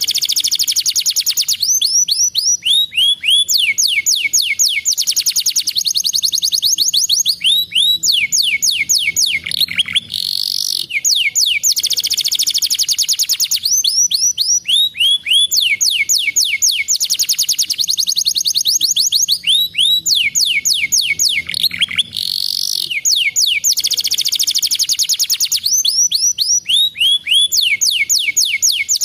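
Domestic canary singing in rapid rolling trills of high, quickly repeated notes, many sliding downward in pitch, with brief breaks between phrases; the same run of phrases repeats about every eleven seconds.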